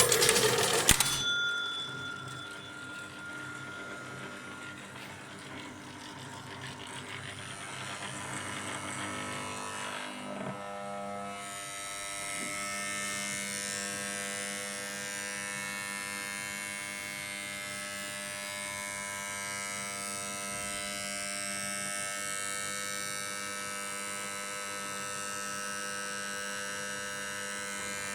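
Fireball pinball machine giving a steady electrical buzz instead of starting up properly, a sign of a fault. A loud harsh burst of noise lasts about the first second; about ten seconds in, the buzz settles into a steady hum with many overtones.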